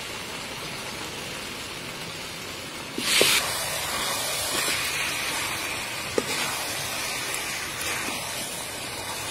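Soybeans and chicken legs sizzling steadily in a hot pan, with a sudden louder burst of sizzle about three seconds in, and a few light clicks of the spatula against the pan.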